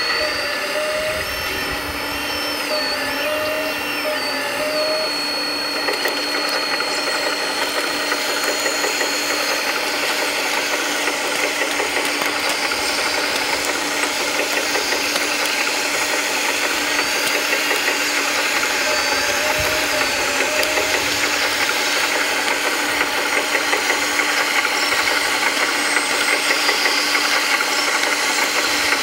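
Scale RC construction machines running: a continuous fast mechanical rattle with electric motor and pump whines, some held steady and some gliding up and down in pitch as the machines change speed.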